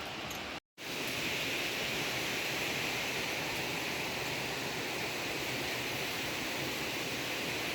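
Steady rush of falling water from a waterfall. A short dead-silent gap just under a second in marks a cut in the recording, after which the rush is slightly louder and brighter.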